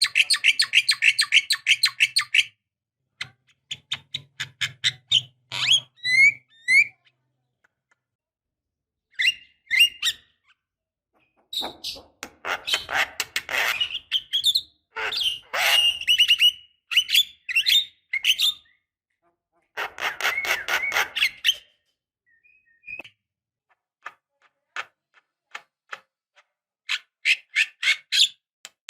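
Javan myna singing: bursts of fast, harsh chattering and clicking trills mixed with short slurred whistles, broken by pauses of a second or more.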